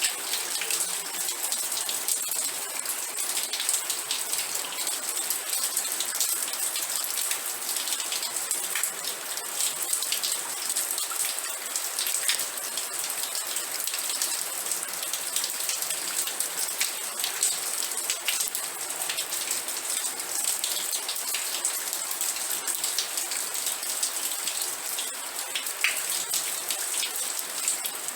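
Steady rain falling, with dense patter of individual drops hitting a surface.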